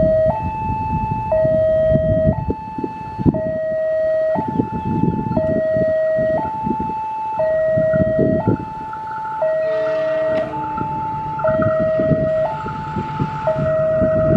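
Railway level-crossing warning alarm sounding a steady two-tone signal, switching between a low and a higher note about once a second, with the rumble of the approaching diesel train beneath it.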